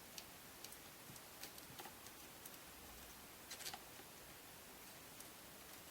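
Near-silent room with faint, scattered small clicks and taps, a short cluster of them about three and a half seconds in, from handling the wire and soldering iron while a red wire is soldered onto a terminal.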